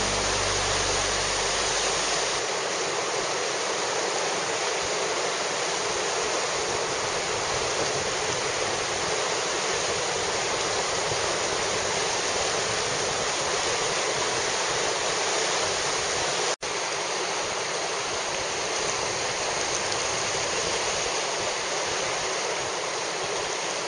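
River whitewater rapids rushing steadily. About two-thirds of the way through, the sound cuts out for an instant.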